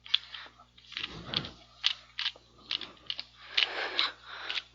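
Rubik's brand 2x2x2 cube being turned by hand during a solve: irregular clacks of the plastic layers with scraping swishes between them, a few each second. The cube turns stiffly and does not turn very well.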